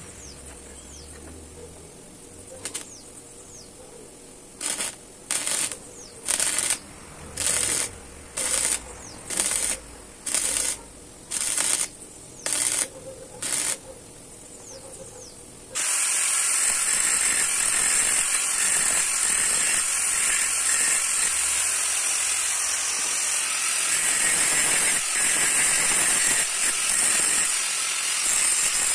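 Arc welder crackling in about a dozen short bursts as tack welds go onto the bent corner of a steel T-bar. About halfway through it gives way suddenly to the continuous harsh hiss of an angle grinder dressing the weld.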